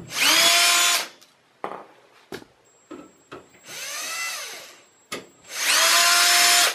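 Power drill-driver with a Phillips bit backing out the screws that hold a desktop PC's steel side cover panel. The motor whines in three short runs: a loud one at the start, a softer one that rises and falls in the middle, and another loud one near the end, with small clicks between them.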